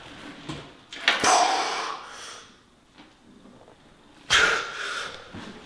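A person exhaling hard with effort twice, about three seconds apart, with a light knock at the start of the first breath.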